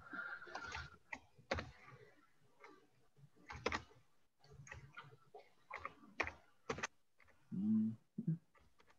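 Computer keyboard typing, heard as irregular quick key clicks in short runs. A brief low pitched sound near the end is the loudest moment.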